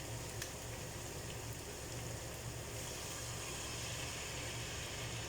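Chicken in soy and pineapple sauce simmering in a pan just after a little water was added to the dried-down sauce: a steady bubbling hiss that grows a little stronger partway through, over a steady low hum.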